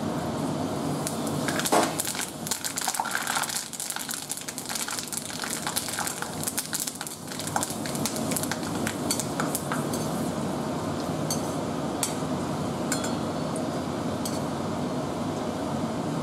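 Fresh curry leaves sizzling and spluttering in hot oil in a kadai: dense crackling for the first half that thins to scattered pops over a steady hiss. A slotted metal spoon stirs the leaves, scraping and clinking against the pan.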